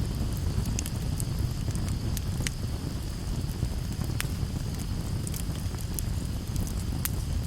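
Wood fire burning: irregular sharp crackles and pops over a steady low rumble of the flames.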